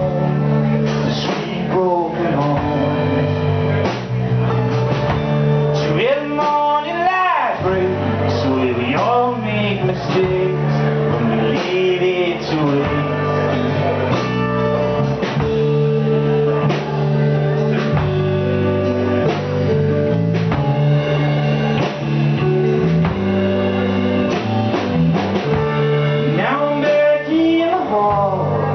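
A band playing a song with electric guitar and a lead vocal, with the singer's voice swooping up and down at times.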